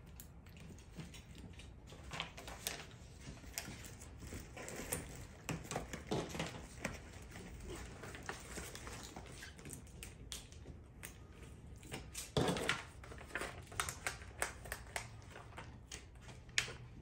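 Handling sounds at a table: scattered light clicks and taps of plastic eyeglass frames and the rustle of paper sticker sheets being peeled and handled, with one louder rustle about twelve seconds in.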